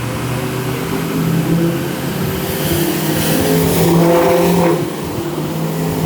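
A loud car engine revving. Its pitch climbs to a peak about two-thirds of the way through, then drops back.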